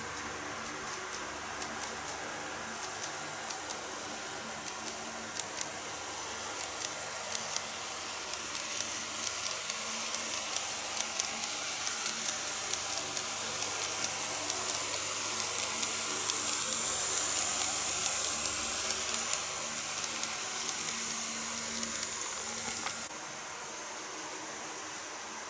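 Greenmax N-scale model of a Keikyu 2100 series electric train running along the track: a steady whirring hiss with irregular sharp ticks from the wheels over the rail joints, growing louder as the train comes close and passes. About 23 seconds in it cuts to a quieter, even hiss.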